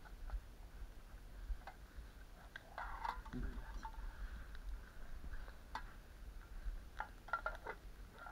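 Small fire of dry twigs and branches crackling, with scattered sharp snaps.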